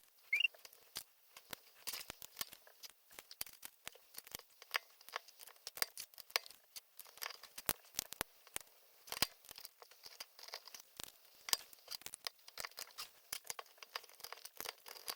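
Small plastic LEGO pieces being handled and pressed together: many sharp, irregular clicks and taps, with light rustling of plastic parts bags.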